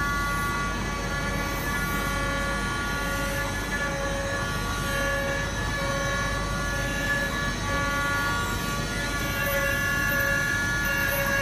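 CNC machine cutting a 316L stainless steel ring: steady machining noise with several high whining tones held throughout and a lower tone that keeps coming and going.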